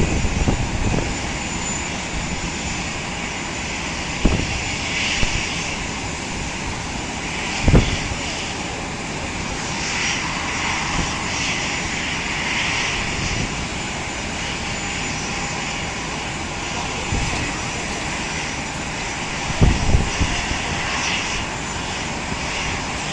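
Steady drone of jet aircraft noise on an airport apron, with a hissing whine that swells and fades at times. A few brief low thumps break through, the strongest about eight seconds in and again near the end.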